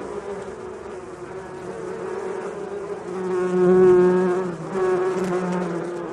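Bees buzzing, a steady layered drone. It swells much louder for about a second midway, as if one bee passes close by.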